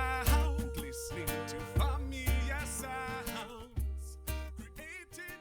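Closing bars of a song: music with deep bass notes on the beat under a gliding melody line, fading out toward the end.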